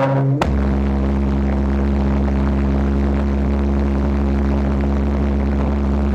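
Homemade LPG-fuelled valveless pulse jet engine running steadily: a loud, even drone that holds one pitch. About half a second in, the tone shifts abruptly to a lower, steadier note.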